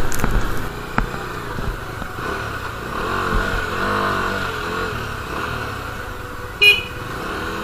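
Bajaj Dominar's single-cylinder engine running as the motorcycle pulls away and picks up speed at low town speed. A short loud beep comes near the end.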